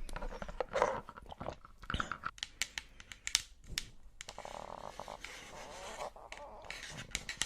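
Close-up chewing and crunching, with a run of sharp crunches about two to four seconds in.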